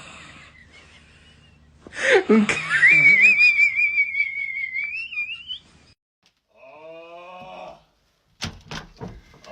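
A sleeping person snoring with a high, wavering whistle on the breath, lasting about three seconds and rising in pitch at the end. A shorter rising pitched sound follows, then a few sharp knocks near the end.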